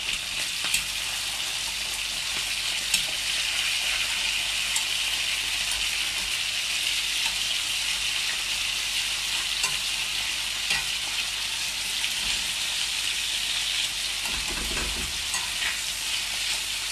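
Pork fillet medallions sizzling steadily in hot fat in a frying pan as they are seared, with scattered light clicks of tongs against the pan as the pieces are turned over.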